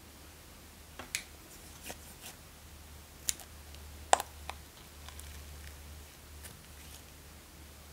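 White foam squirting out of a squeezed rubber balloon ball onto slime: a few sharp, crackling clicks and squirts, the loudest about four seconds in, then fainter ticks.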